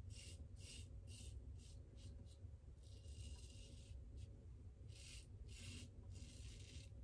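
Supply single-edge injector razor scraping stubble through shaving lather on the cheek: a faint run of short rasping strokes at an uneven pace, with a couple of longer strokes about three seconds in and again about five seconds in.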